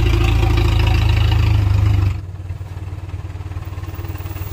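Old flatbed truck's engine running loud and close as the truck moves slowly past. About two seconds in it drops suddenly to a quieter, even running.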